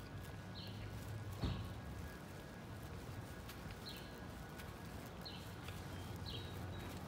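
Footsteps on a sidewalk, with a small bird giving short, high, downward chirps every second or so over a low steady rumble. A single sharp knock about a second and a half in.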